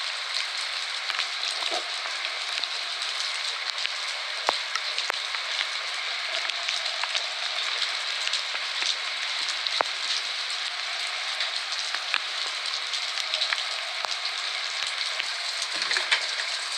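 Steady rain falling, with many individual drops ticking sharply close by.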